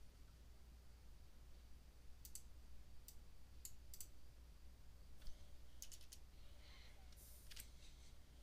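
Faint computer keyboard keystrokes and mouse clicks: about a dozen short clicks from about two seconds in, some in quick pairs and runs, as a number is typed into a form field. A steady low hum runs underneath.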